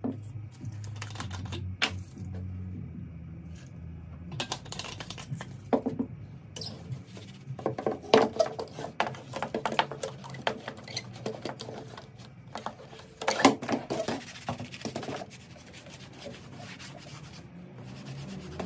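A cloth rubbing and wiping over BMW E36 plastic centre-console trim, with scattered clicks and knocks as the pieces are handled, over a steady low hum.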